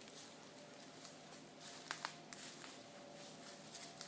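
Quiet woodland ambience with scattered small ticks and rustles, the sharpest two close together about two seconds in, over a faint steady hum.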